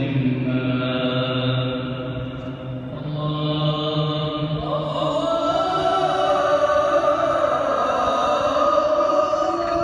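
An imam's solo voice chanting the prayer in long, held melodic notes. In the second half the voice steps up in pitch and draws out one long note, the 'Allahu akbar' that calls the congregation down to bow.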